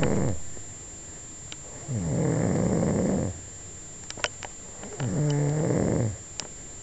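Snoring: two full snores about three seconds apart, each a buzzing sound lasting a little over a second, with the tail of another at the very start.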